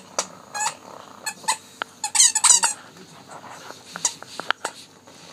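A plush squeaky toy squeaking again and again as an English bulldog chews and presses it in its mouth, with a rapid burst of squeaks about two seconds in.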